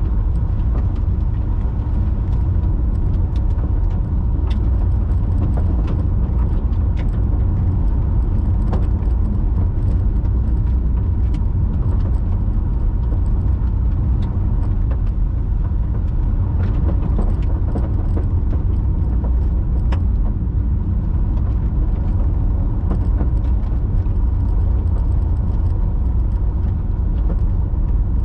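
Car driving at speed: a steady low rumble of road and engine noise, with scattered faint ticks.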